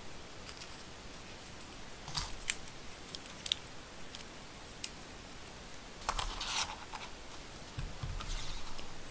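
Small hard plastic RC crawler suspension parts and a screw clicking and rustling as they are handled and fitted by hand: a few sharp clicks about two to three and a half seconds in, then short rustling scrapes around six and eight seconds.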